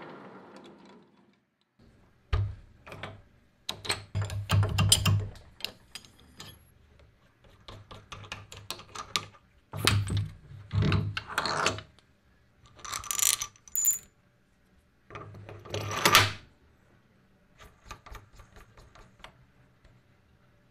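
Lathe running down in the first second or so, then a steel quick-change tool post and an aluminium jig being lifted off and set onto the compound slide by hand: separate clanks, knocks and scrapes of metal on metal in clusters, with a short high ringing about two-thirds of the way through.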